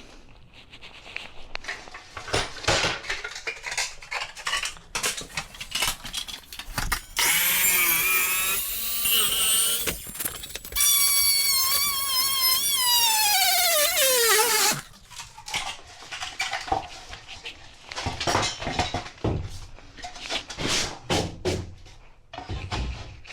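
Handheld power saw cutting a notch out of a vinyl plank in two runs of about three and four seconds, the pitch of the second run falling steadily until it cuts off. Knocks and clatter of the plank being handled come before and after the cuts.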